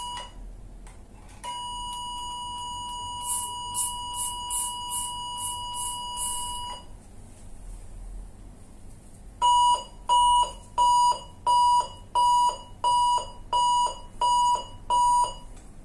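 A 400-watt electrosurgical generator sounds its steady, high activation tone for about five seconds while the pencil electrode crackles with sparks as it arcs onto the meat in spray coagulation mode. After a short lull, the unit sounds an alarm of about ten loud, evenly spaced beeps, a bit under two a second. It signals error E01 as the meat is lifted off the return electrode plate.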